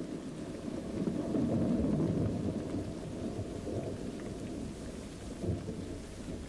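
A low rumbling noise that swells about a second in and then slowly fades.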